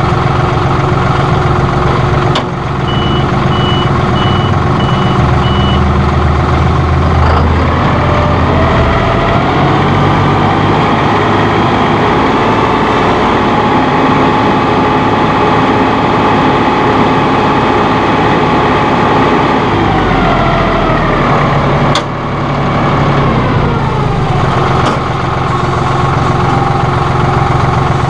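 John Deere 5045E tractor's 2.9-litre three-cylinder diesel running steadily. It is throttled up about eight seconds in, held at higher revs, then eased back down over a few seconds after the twenty-second mark. Two sharp clicks sound, one early and one as the revs start to fall.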